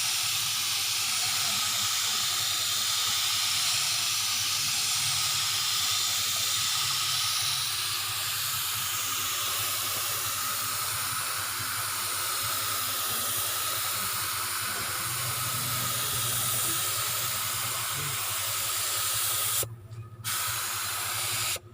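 Compressed-air paint spray gun hissing steadily as paint is sprayed, with a low hum beneath. The spray stops briefly about twenty seconds in, then starts again and cuts off just before the end.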